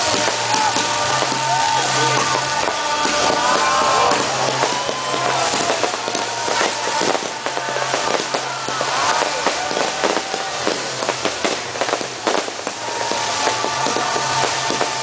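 Fireworks going off in quick succession, sharp bangs and crackling, over loud music.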